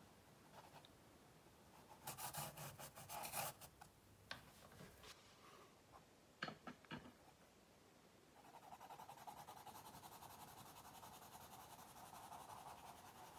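Faint scratching of a white pastel crayon drawn across brown paper in quick, steady strokes, starting about two-thirds of the way in. Before it, a brief rustle and a few light clicks of drawing tools being handled.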